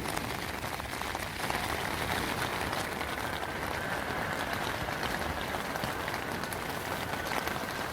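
Steady rain falling during a typhoon, a dense even hiss with scattered individual drop hits.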